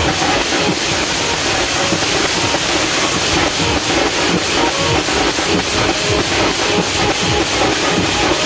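Loud teenmaar band drumming in a fast, steady beat, sounding harsh and noisy.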